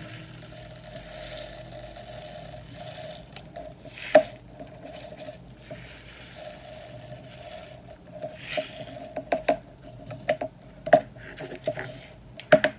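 Small plastic bags of 3 mm beads rustling as they are handled, with light clicks of beads and of a plastic compartment organizer box. One sharp snap about four seconds in, and a quick run of clicks in the last few seconds.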